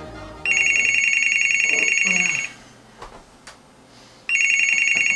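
Corded desk telephone's electronic ringer ringing: one full ring of about two seconds starting about half a second in, then a second ring of the same length starting near the end.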